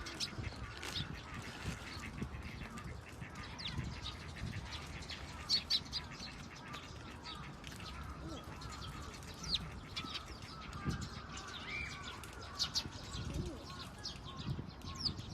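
Birds chirping: many short, high chirps scattered irregularly, over a low rumble.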